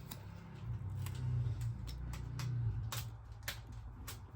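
Scattered light clicks and taps, roughly one every half second, as toy kitchen pieces are handled, over a low hum that swells and fades in the first three seconds.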